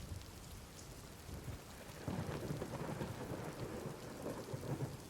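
Steady rain falling, with a low roll of thunder that swells about two seconds in and rumbles on almost to the end.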